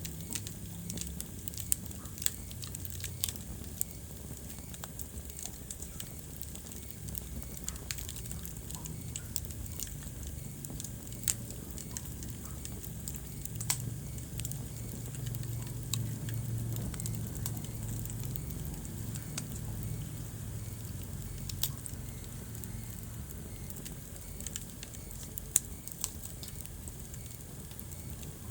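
Wood fire burning in a fireplace: irregular sharp crackles and pops, a few of them louder, over a steady low rumble of the flames.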